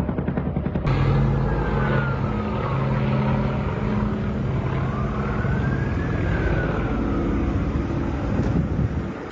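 A helicopter's rotor pulsing for about the first second. Then, after a cut, an emergency vehicle siren wails slowly down, up and down again over a loud, steady rumble.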